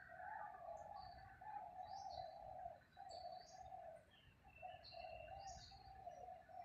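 Faint birdsong: a low, drawn-out call that carries on with short breaks, and short high chirps scattered over it.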